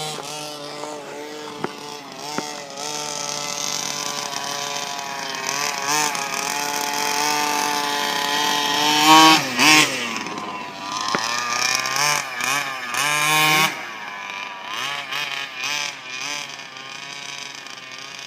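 Small two-stroke engine of a gas-powered baja RC buggy, revving up and down as it is driven. Its pitch swings repeatedly and is loudest about halfway through and again a few seconds later.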